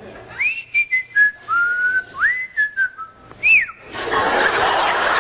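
A man whistling a short, jaunty tune of sliding and held notes, ending on a quick rise and fall. About four seconds in, audience laughter and applause break out.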